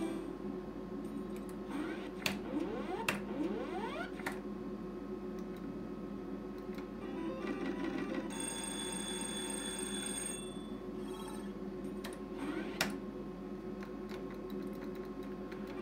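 Novomatic Sizzling Hot slot machine's electronic ringing jingles and beeps, with rising tones as the reels spin and play runs on to the card gamble. Sharp clicks of its push buttons come about 2, 3 and 4 seconds in and once more near the end.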